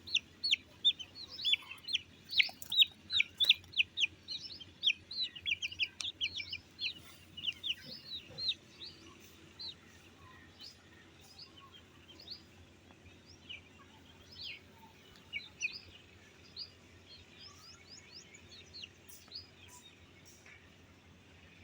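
White silkie chicks peeping: many short, high chirps that each fall in pitch, coming thick and fast for the first nine seconds or so, then fewer and fainter.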